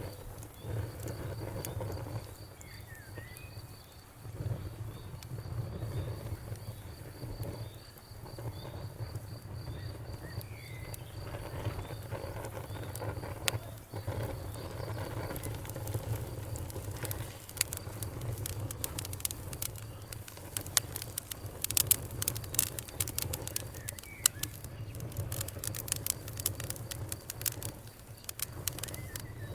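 Campfire crackling and popping over a low, steady rumble of burning wood, the pops growing denser in the second half. A cricket chirps in an even, pulsing rhythm through the first half, and a few faint short animal calls sound in the distance.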